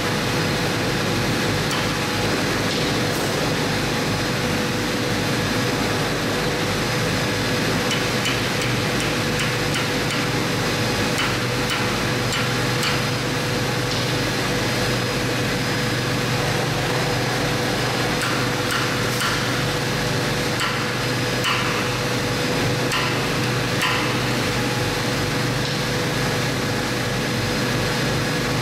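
Ball-peen hammer striking a steel chisel held against the hub nut of a pulverizer grinding disc: irregular sharp metal taps, more frequent in the middle part, over a steady hum.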